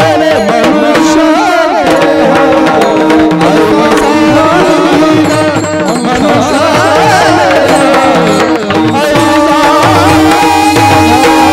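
Marathi devotional bhajan music: tabla playing a steady rhythm under a held drone note, with a wavering, ornamented melody over it.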